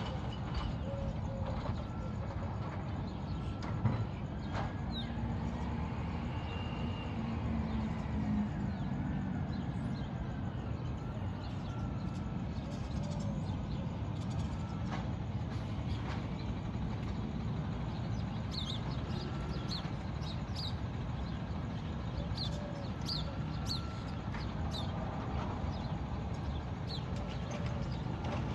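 Low, steady rumble of a distant CNG Peterbilt garbage truck running as it works down the street, with birds chirping in short bursts in the second half.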